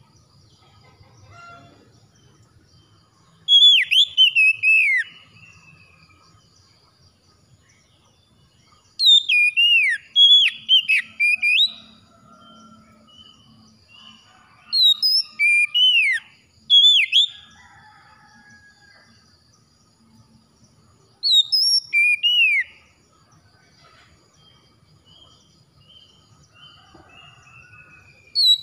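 Oriental magpie-robin singing: loud phrases of quick whistled notes that swoop up and down, in four bursts of one to three seconds each, with another starting at the very end. Between the phrases it gives soft, quiet notes.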